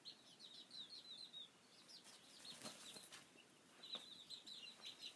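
Faint, rapid high-pitched peeping from young chickens in two runs, with a pause near the middle and a couple of soft clicks.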